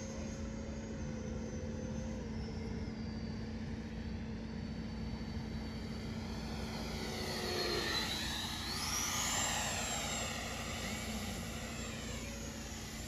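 Electric ducted fan of an FMS 80mm F-86 Sabre RC jet whining in flight. About eight seconds in it passes closer: the whine grows louder and its pitch sweeps up, then falls away.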